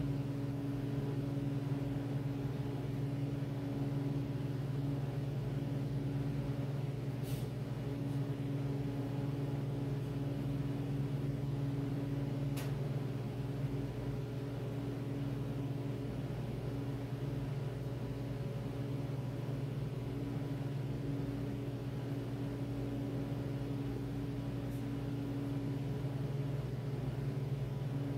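A steady low hum with fainter higher overtones, unchanging throughout, with a couple of faint clicks about seven and twelve seconds in.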